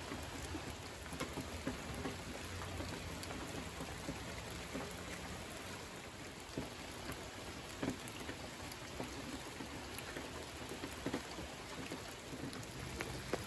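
Steady rain falling, with scattered louder drops splashing close by.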